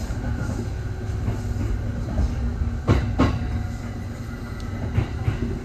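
Kintetsu 1021 series electric train running, heard from inside the cab: a steady low rumble of wheels on rail, with two sharp clacks about three seconds in and another near the end as the wheels cross rail joints.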